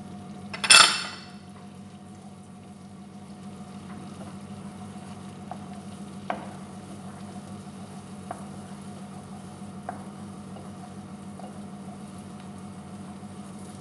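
Garlic sautéing in melted butter in a pan. A brief loud sizzle about a second in as it goes into the hot butter, then a steady low sizzle while it is stirred, with a few light taps of the spoon against the pan.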